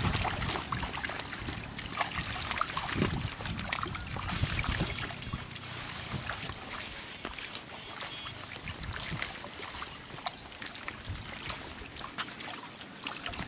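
Shallow muddy water splashing and sloshing inside a fine-mesh nylon fishing net as it is hauled in, with many small irregular splashes from fish churning the water in the gathered net.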